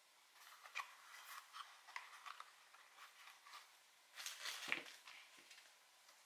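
Hands handling and turning a small cardboard box: faint rubbing and light taps of fingers on the cardboard, with a louder scuff about four and a half seconds in.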